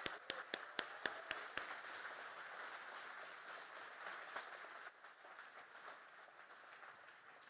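Audience applauding, with several sharp single claps standing out in the first second and a half; the applause thins out and dies away near the end.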